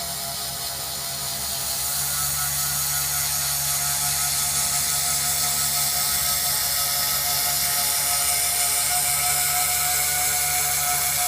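Carbide router bit in the spindle of a mini CNC-BLACK II milling machine cutting through 1.6 mm double-sided FR-4 glass-epoxy circuit board: a steady high spindle whine with cutting hiss, growing a little louder about two seconds in.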